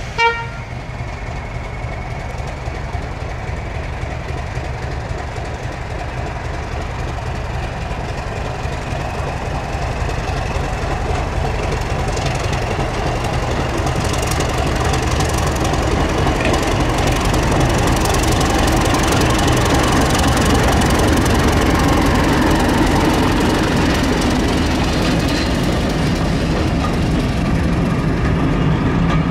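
Class 31 diesel locomotive with its English Electric V12 engine working as it hauls a train of coaches toward and past, getting louder and then steady as the coaches roll by. A short horn toot just after the start.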